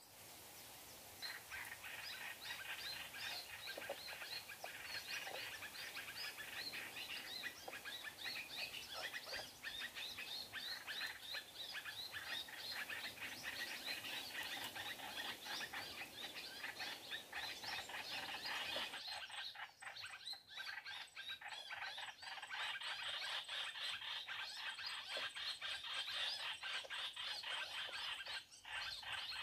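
Small songbirds calling in dense, rapid, continuous chirps. About two-thirds of the way through, the low background hiss drops away suddenly while the chirping carries on.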